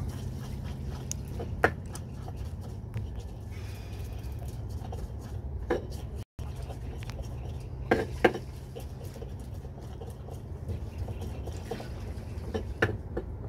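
Pestle grinding chillies and shallots in a mortar for sambal. It scrapes and presses, with a few sharp knocks of pestle against mortar: one about a second and a half in, one near the middle, a quick pair about eight seconds in and one near the end. A steady low hum runs underneath.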